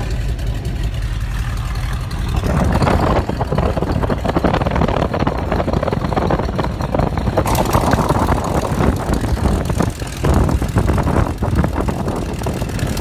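Boeing Stearman biplane's radial engine running with the propeller turning, heard from the open cockpit. About two and a half seconds in it gets louder and fuller.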